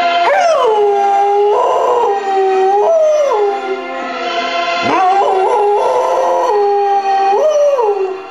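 A dog howling along to a recorded rock ballad with orchestral backing. Long held howls drop steeply in pitch at the start, then step up and slide back down several times over the music.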